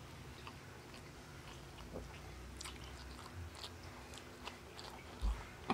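Close-up mouth sounds of a person eating rice and fried food with his hands: chewing with scattered small wet clicks and crackles, and a dull low thump shortly before the end.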